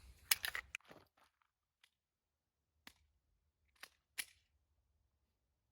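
Short sharp clicks of a Glock pistol being loaded: a quick cluster of small clicks in the first second, then three single clicks about three to four seconds in. A full 15-round Shield Arms S15 magazine is being seated and the slide racked to chamber a round, which racks fairly easily.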